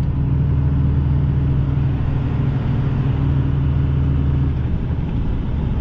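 5.9-litre 12-valve Cummins turbo diesel running steadily as the truck drives, with a low, even drone over road noise; the engine note eases off about four and a half seconds in.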